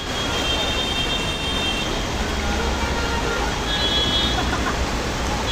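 Steady noise of heavy monsoon rain and traffic on a flooded street. Thin high squeals sound near the start and again around four seconds in.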